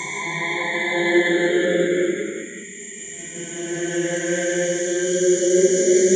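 Eerie horror ambience: a low drone with choir-like chanting voices held on steady notes over a high hiss. It dips briefly a little before halfway, then swells back.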